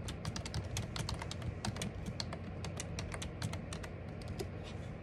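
Fast typing on a computer keyboard: a quick, uneven run of key clicks that thins out near the end.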